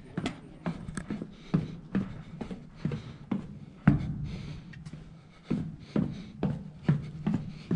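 Footsteps going down the wooden stairs of a fire tower, about two steps a second, each a knock with a low ring. The heaviest thump comes about four seconds in, followed by a brief pause before the steps resume.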